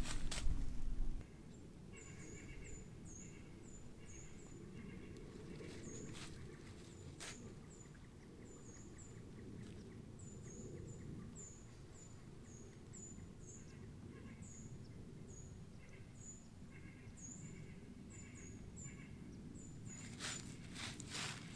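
Birds calling: a short, high, down-slurred chirp repeated about twice a second, with fainter, lower calls in short runs now and then. A loud low rumble stops about a second in.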